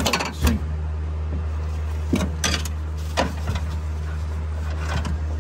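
A few short sharp clicks and knocks from window regulator parts being handled, over a steady low hum.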